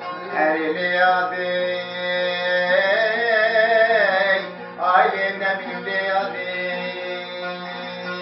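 A man singing long, wavering held phrases to his own bağlama (long-necked saz), the plucked strings ringing steadily under the voice. The voice breaks off briefly about halfway through, then starts a new phrase.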